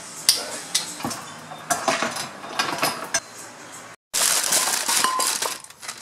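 Metal bike chain links clinking and clicking as a chain-breaker tool is worked, with sharp scattered clicks. After a sudden break about four seconds in, a plastic bag crinkles loudly and metal spray-paint cans clink together inside it.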